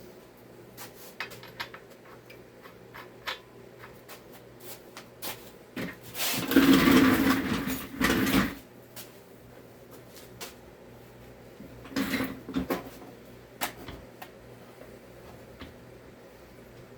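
Small clicks and knocks of tools being handled, with a loud rattling rush of about two seconds starting about six seconds in and a shorter one about twelve seconds in: a tool drawer sliding open and shut while something is searched for.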